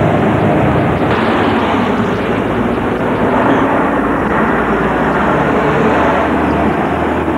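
City street traffic heard through a camcorder's microphone: a loud, steady din of passing cars and a bus's engine.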